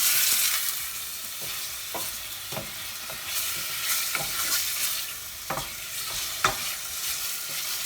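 Chunks of chicken breast sizzling in hot oil in a pan while a wooden spoon stirs them, with a steady high hiss and the occasional knock of the spoon against the pan. The chicken is starting to stick.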